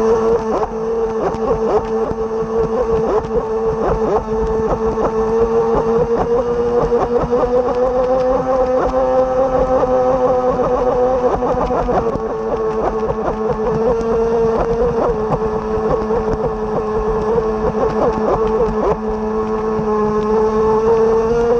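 Electric RC boat's Leopard 4074 1400KV brushless motor running at speed on a 6S battery: a steady high whine holding close to one pitch with small rises and dips, heard up close from a camera on the boat's cowl. Many short slaps and knocks from the hull hitting choppy water run through it.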